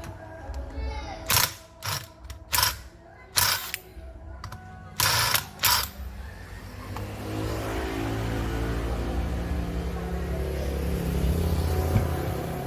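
A series of sharp mechanical clicks and knocks, then from about six seconds in a steady whirring hiss over a low hum.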